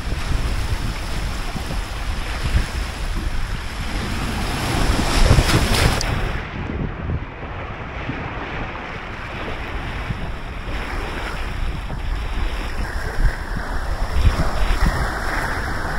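Steady rushing noise of moving water with wind buffeting the microphone, swelling briefly about five seconds in.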